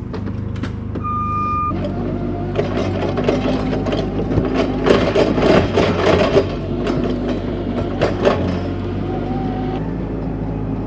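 Forklift engine running and working, with rattling and clanking as it handles a dual tractor tire. A single short beep comes about a second in, and the engine picks up just after.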